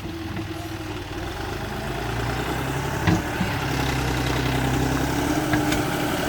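Bulldozer's diesel engine running steadily, growing a little louder over the first few seconds, with a single sharp knock about three seconds in.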